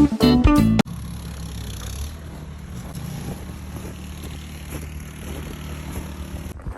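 Guitar music cuts off abruptly under a second in. A steady low engine hum follows, the sound of a vehicle running at idle.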